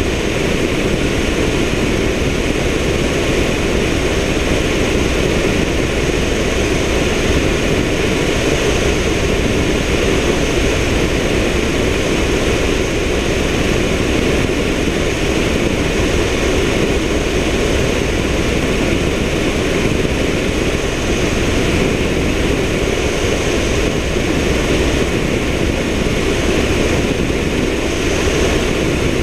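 Helicopter in steady flight: a constant dense rush of rotor, engine and airflow noise, heard from a camera mounted on the outside of the fuselage.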